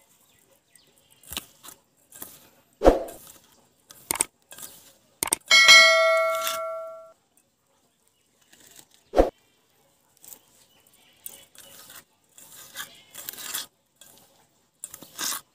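Stainless steel bowl knocked and ringing with a clear metallic tone that fades over about a second and a half, among a few sharp knocks. Near the end, soft rustling as a hand stirs ant eggs in the bowl.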